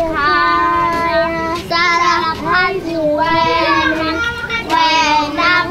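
Young children singing a song, with long held notes that bend up and down between phrases.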